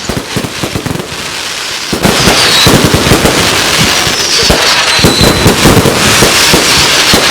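Fireworks going off in a dense run of rapid crackling bangs that gets louder about two seconds in, with short high falling whistles on top.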